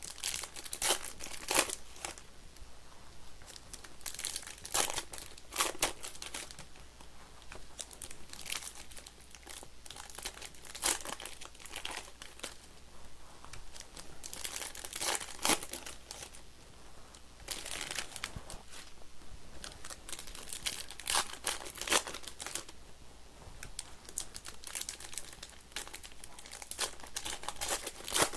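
Foil trading-card pack wrappers being torn open and crinkled by hand, in irregular crackling bursts with sharp peaks throughout.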